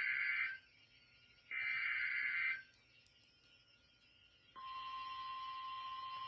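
NOAA Weather Radio Emergency Alert System transmission: one SAME digital header burst ends just after the start and another plays about a second and a half in, each a harsh screech of data about a second long. About four and a half seconds in, the steady 1050 Hz warning alarm tone starts, announcing a severe thunderstorm warning.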